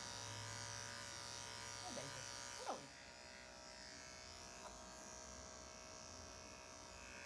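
Electric pet grooming clippers buzzing steadily at low level. Their hum changes about three seconds in, just after a short sharp sound.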